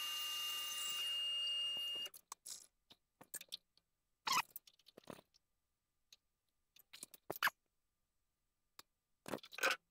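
Metal lathe running with a steady high whine that cuts off suddenly about two seconds in as the spindle stops. Then scattered light clicks and knocks from hands handling the stainless steel workpiece and tooling, with silence between them.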